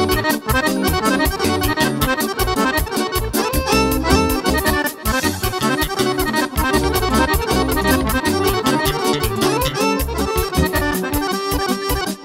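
Live instrumental dance music led by two accordions, a piano accordion and a chromatic button accordion, playing fast runs over keyboard accompaniment with a steady quick beat.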